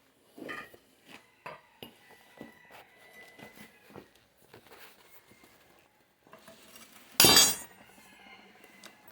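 Metal tools and pieces being handled, a string of small clinks and knocks, then one loud ringing metallic clank about seven seconds in.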